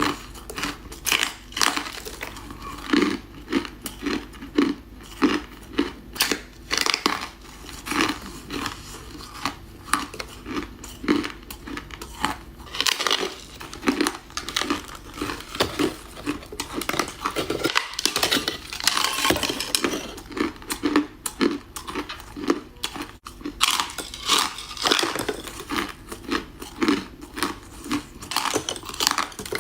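Ice being bitten and chewed close to the microphone: a steady run of short, sharp crunches, one or two a second.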